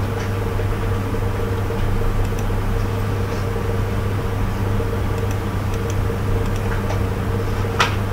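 Steady low hum with hiss, unbroken, with a few faint clicks and a sharper click near the end.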